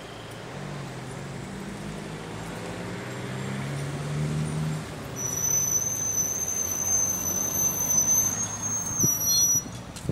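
Street traffic noise with a vehicle running, growing louder through the first half. From about halfway a steady high-pitched whine sets in, dropping in pitch and breaking into short tones shortly before the end.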